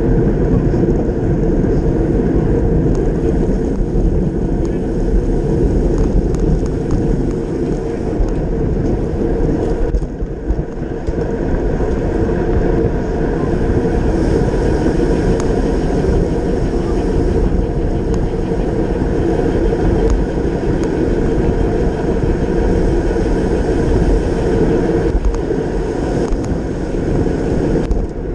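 Steady wind rumble over a racing bicycle's action-camera microphone at speed, mixed with tyre and road noise, with a brief dip about ten seconds in.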